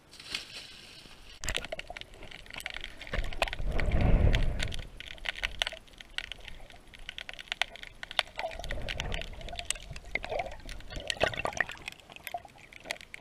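Water heard through a camera held underwater: many sharp clicks and crackles, with two muffled rumbling surges of moving water, the louder one about four seconds in.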